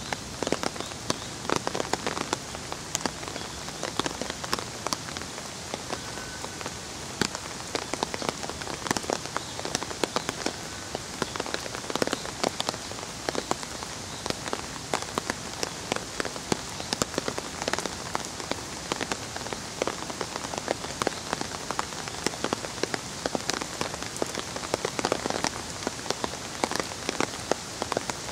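Steady rainfall, with many sharp, close drops ticking among the patter.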